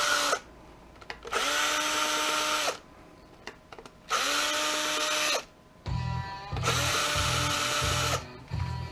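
Cordless drill/driver removing screws from a plastic projector-lamp housing. It runs in four short bursts of about a second or so each, whining up to speed at every start and then stopping. A low rhythmic beat of background music comes in near the end.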